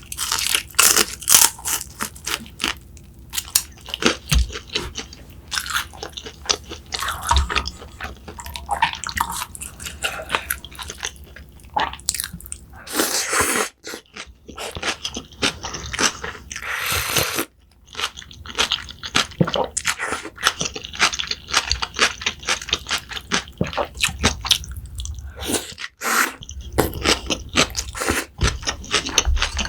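Close-miked chewing and crunching of food, dense crisp bites and chews, with two longer rushing noises about halfway through.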